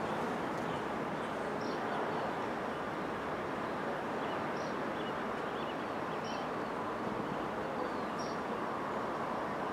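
Steady outdoor background noise with a bird giving short, high chirps every second or two.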